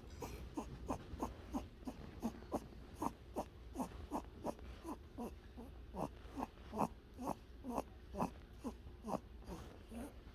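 Pet rabbit snoring in its sleep: a quick, even run of short snuffles, about three a second, each one dropping in pitch.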